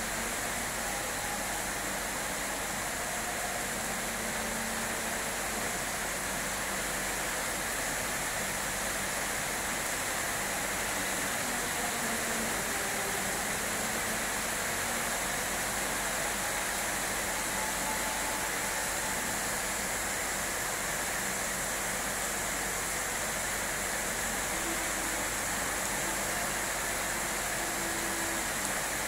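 Steady rain falling, an even hiss with no breaks or single events.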